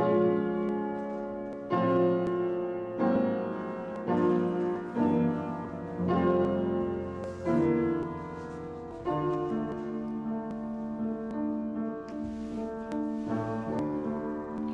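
Piano playing slow, full chords, each struck and left to ring for about a second and a half, then moving into a steadier, more flowing passage about nine seconds in.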